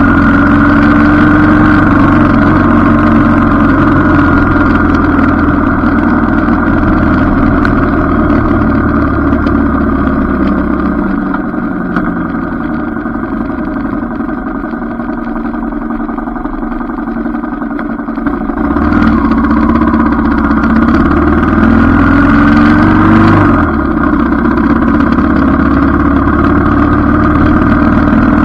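Motorcycle engine running under way, heard from a handlebar-mounted camera. It falls to a quieter idle in the middle as the bike slows at a stop sign, then picks up again as it pulls away. Near the end one rev rises in pitch and drops sharply as the bike shifts up.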